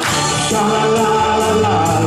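Upbeat show music with a man singing over it into a microphone.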